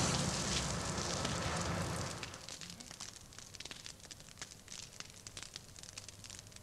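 Open flames burning. The rush of a large flare-up dies away over the first two seconds, leaving scattered crackles and pops.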